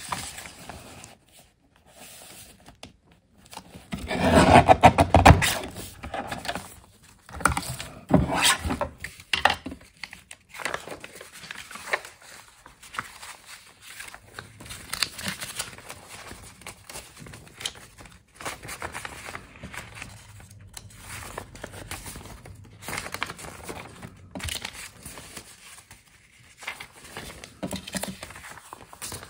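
Paper being handled on a work table: sheets rustling, crinkling and scraping in short irregular strokes, loudest about four to five seconds in.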